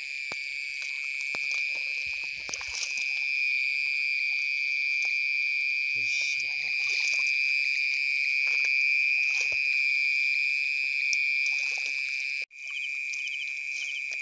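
Night insects trilling in one steady, high, unbroken note, which breaks off for an instant near the end, with faint sloshing of water as someone wades.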